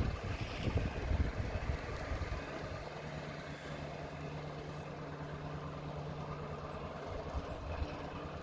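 Irregular low rumbling for the first couple of seconds, then an engine idling with a steady low hum.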